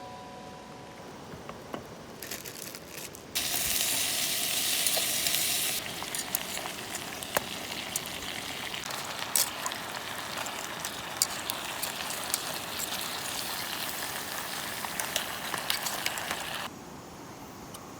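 Food sizzling as it cooks over the fire, a steady hiss scattered with sharp crackles and pops. It is louder for a couple of seconds a few seconds in and breaks off sharply near the end.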